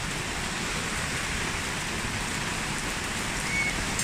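Steady rain falling, an even continuous hiss of drops on a surface. About three and a half seconds in, a brief faint high whistle-like tone is heard.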